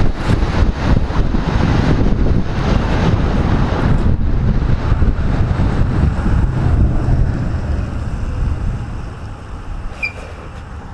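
Wind buffeting the microphone over motorcycle engine and road noise while riding, easing off over the last few seconds as the bike slows behind traffic.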